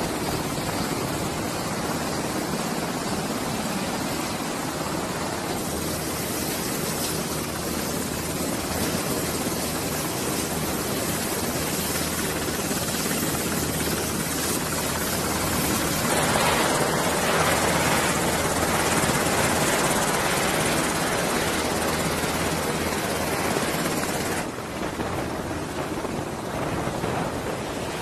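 Rotors and twin turboshaft engines of MH-60R Sea Hawk helicopters running on the ground, a steady dense noise. It gets louder about sixteen seconds in and drops again near the end.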